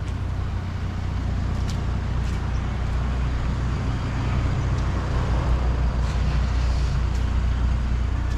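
Motorbike engine running steadily at a constant low hum while riding, with wind and road noise rushing over the microphone.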